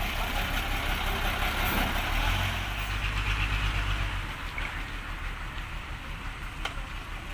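Diesel engine of a Mitsubishi Fuso tow truck idling with a steady low throb. About four seconds in, the throb drops away to a quieter, more distant engine hum.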